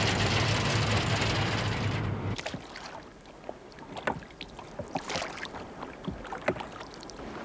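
A boat under way: a steady low engine hum and water rushing past the bow, which cut off suddenly about two seconds in. After that comes quieter lapping water with a few scattered small splashes.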